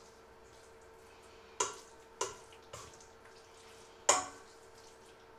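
A utensil knocking against a stainless steel mixing bowl while batter is stirred by hand: four sharp clinks with a short ring, the loudest about four seconds in, over a faint steady hum.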